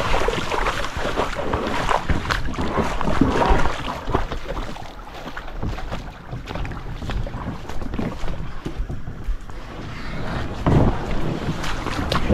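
Kayak on a lake: water splashing and sloshing against the hull with scattered knocks, and wind rumbling on the microphone. It eases off for a few seconds in the middle.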